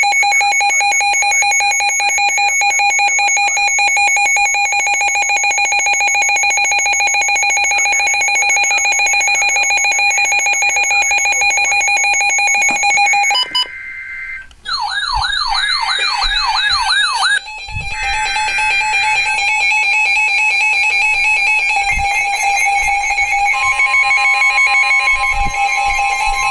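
Electronic Emergency Alert System alert tones: loud, steady held tones, broken a little past halfway by about three seconds of a tone warbling up and down a couple of times a second. Steady tones then return, and a second tone joins near the end.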